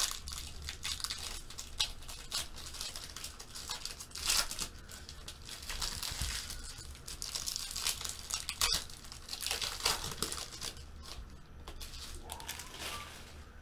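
Foil wrapper of a Bowman football card pack crinkling and tearing as it is opened by hand, in irregular crackly bursts.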